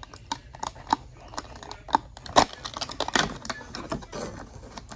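Fingers tearing open a cardboard advent calendar door and prying out a small plastic-packed miniature: an irregular run of sharp clicks, taps and crinkles, loudest about two and a half and three seconds in.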